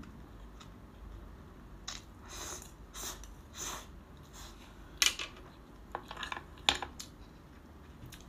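Tableware handled during a meal: a few short rustling scrapes, then sharp clinks about halfway through and again near the end, the loudest of them a little after the middle and late on.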